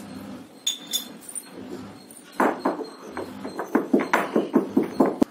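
A metal spoon clinks twice against a stone mortar. Then a stone pestle pounds cumin and salt in the mortar in a quick run of knocks, about five a second.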